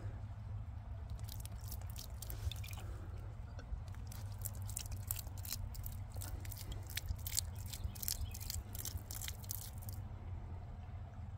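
Muddy water dripping and trickling out of the neck of a freshly dug glass bottle onto the dirt: a quick, irregular run of drips that starts about a second in and stops near the end.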